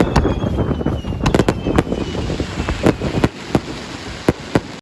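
Fireworks going off: a dozen or so sharp bangs at uneven spacing over a steady rumble, with a faint falling whistle.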